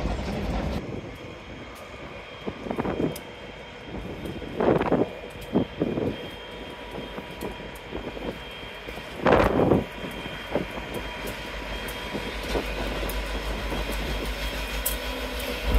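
Class 59 diesel locomotive's two-stroke V16 engine running in a steady drone as it hauls coaches slowly past, growing louder over the last few seconds. A few short bursts of noise stand out, the loudest about five seconds in and again about nine seconds in.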